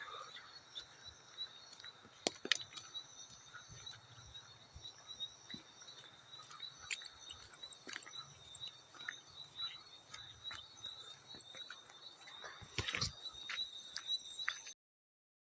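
Field crickets chirping, a steady run of rapid pulses at a high pitch, with scattered small water splashes and drips clicking over it. The sound cuts off abruptly near the end.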